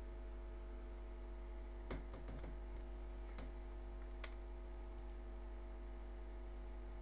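A few sharp computer mouse clicks, a cluster about two seconds in and single ones at about three and a half and four seconds, over a steady faint hum and hiss.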